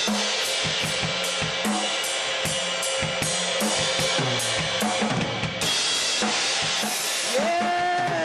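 Drum kit played in a steady beat, cymbal strikes about three a second over kick and snare hits. A short pitched sound rises and falls near the end.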